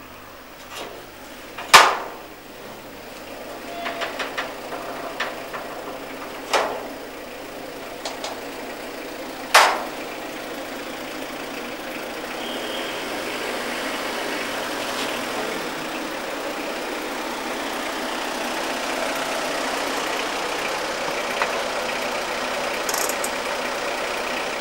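A sheet-metal gate clanking sharply three times as its latch is worked and it is swung open, the loudest clank about two seconds in. Then a car engine running as the car pulls into the yard, growing steadily louder over the second half.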